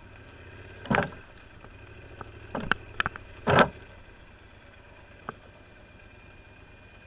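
Yamaha Super Ténéré's parallel-twin engine running low and slow, with several loud sudden scrapes and slaps as palmetto fronds and brush hit the bike and camera, the loudest a little past the middle.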